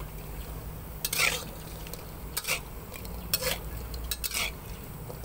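Spatula scraping and scooping in an aluminium pan of hot oil and fried rice: four short scrapes about a second apart, over faint sizzling.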